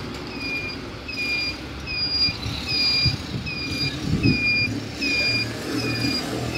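Pedestrian crossing signal beeping: a high, even beep repeating about every three-quarters of a second, over the rumble of passing road traffic.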